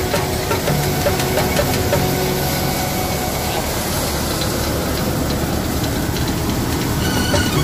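Paddy thresher running steadily, driven by a John Deere 5055E tractor's diesel engine, with a continuous machine drone as rice sheaves are fed in and threshed.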